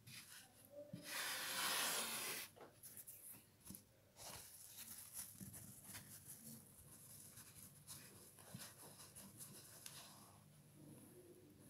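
Kitchen sponges and shredded sponge and scourer-pad scraps being handled and rubbed across a wooden table. A louder scratchy rustle comes about a second in and lasts over a second, then softer rustling and light taps follow.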